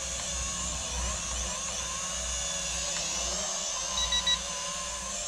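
TOPRCBOXS S1 folding quadcopter drone flying low, its four small propellers making a steady high whine that wavers up and down in pitch as it manoeuvres. Three short beeps come about four seconds in.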